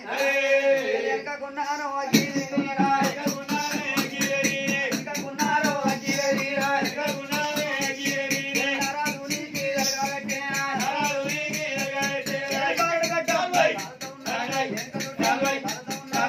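Men singing an Oggu Katha folk song, joined about two seconds in by a fast, steady jingling of ankle bells that carries the rhythm.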